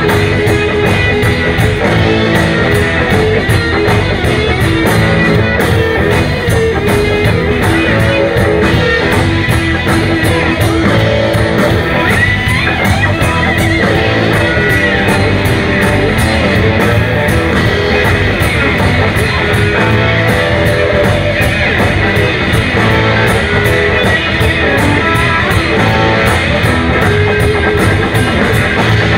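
Live electric blues band playing an instrumental stretch: electric guitars over bass and a drum kit keeping a steady beat.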